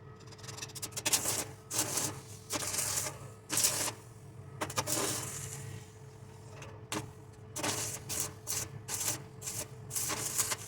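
Electric welding arc crackling in a string of short bursts, each a second or less, with short gaps between them, over a steady low hum.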